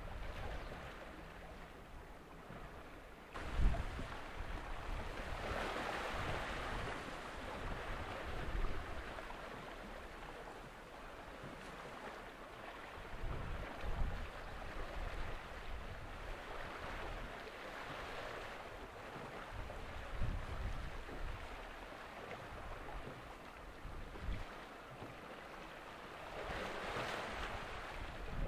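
Waterside ambience: a hiss of water that swells and fades every several seconds, like small waves washing on the shore, with short gusts of wind rumbling on the microphone.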